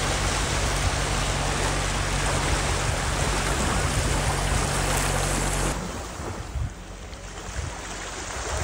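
Small waves breaking and washing up a sandy shore, a steady rush of surf. About six seconds in it drops suddenly to a quieter, uneven lapping of shallow water.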